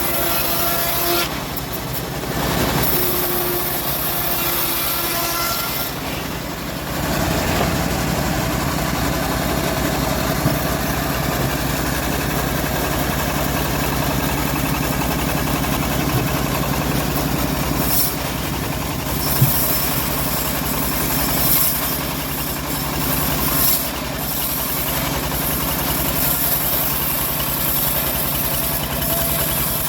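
Engine of a homemade bandsaw sawmill running steadily, with a change in its sound about seven seconds in.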